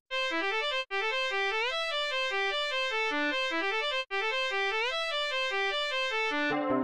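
Music: a bright melody of quick, short pitched notes in rising runs, played twice over, with more instruments and lower notes joining near the end.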